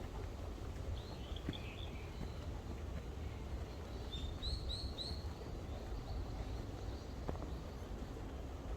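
Birds chirping: a few short calls about a second in, then a quick series of four notes about halfway through, over a steady low rumble.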